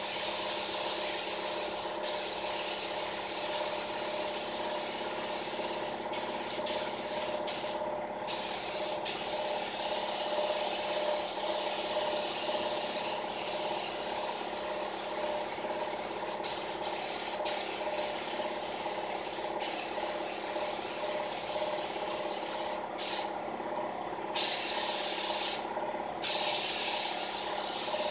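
Paint spray gun spraying clear coat: a loud airy hiss in long passes, cut off for short pauses several times as the trigger is released, over a steady hum.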